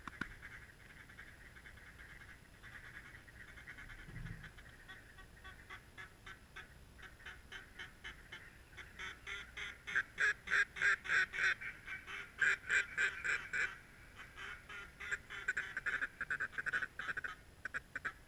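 Rapid runs of mallard-style quacks, several a second, building to the loudest stretch a little past the middle and coming again near the end.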